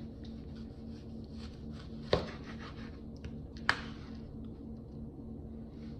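A dull kitchen knife sawing through a tomato, knocking sharply on the plastic cutting board twice as slices come through, between faint slicing scrapes. A steady low hum runs underneath.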